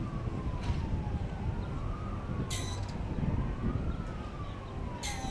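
An emergency-vehicle siren wailing, its pitch rising and falling slowly about every two seconds, over a steady low background rumble. There are a few brief high hissing sounds.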